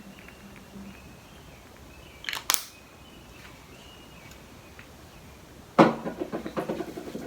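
Objects being handled by hand: a brief crackle about two and a half seconds in, then a sharp knock near the end followed by a rapid run of clicks and rustles.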